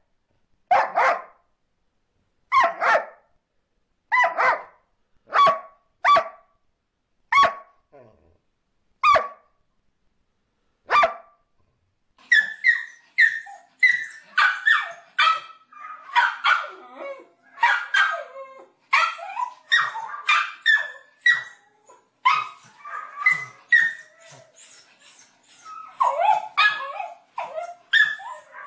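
Dogs barking: about eight single barks a second or two apart, then, from about twelve seconds in, a small dog yapping rapidly and almost without pause in short, high yips.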